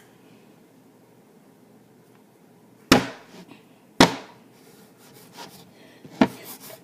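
Three sharp chops of a kitchen knife cutting through potato onto a cutting board, about a second apart and then a two-second gap before the third.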